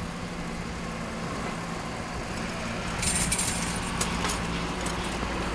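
Street traffic noise heard from a moving bicycle: a steady low engine hum. About three seconds in comes a short burst of rattling, followed by a few sharp clicks.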